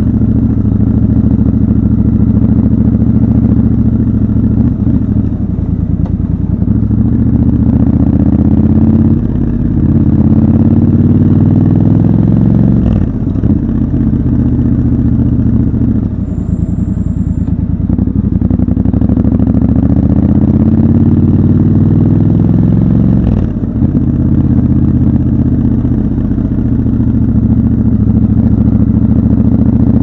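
Triumph Scrambler 1200 XC's parallel-twin engine running under way at low speed. Its pitch rises as it pulls and drops as the throttle closes, and this repeats several times.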